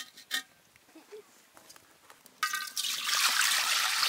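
Water poured from a vessel into an empty aluminium pot, starting suddenly about two and a half seconds in and running steadily. A couple of light knocks come just before it, near the start.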